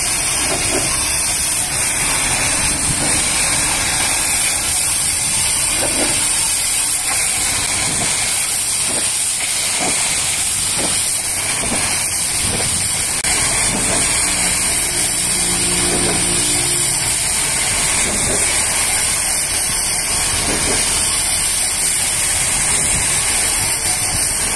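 High-pressure water jet from a pressure-washer lance spraying against the rear doors of a box semi-trailer: a steady, loud hiss.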